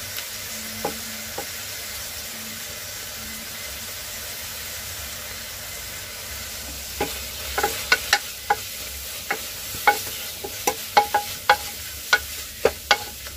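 Fenugreek leaves, peas and onions sizzling steadily as they fry in oil in a pressure cooker. From about seven seconds in, a wooden spatula stirs them, knocking against the metal pot in a quick, uneven run of sharp taps.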